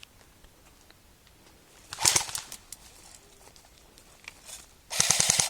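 Airsoft gun firing two short full-auto bursts, about two seconds in and again near the end, each a fast rattle of shots at roughly a dozen a second.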